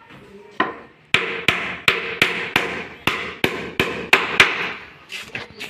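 Hammer blows on wood during woodworking: about a dozen sharp strikes at roughly three a second, each with a short ring, then a few lighter taps near the end.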